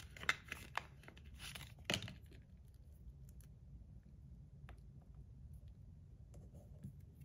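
Crinkling of a small clear plastic zip bag being handled and opened, then a few faint taps and clicks as small parts are set down.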